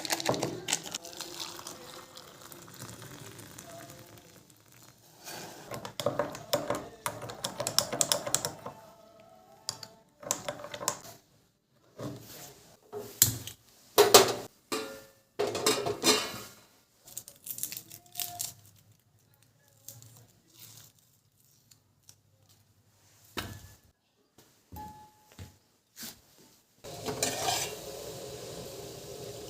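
Kitchen utensils and dishes clinking and clattering in short, irregular bursts of handling.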